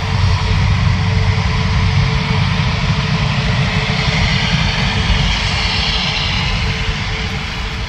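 Airbus A380 jet engines running loud and steady close by, a low rumble under a high hiss that swells about halfway through.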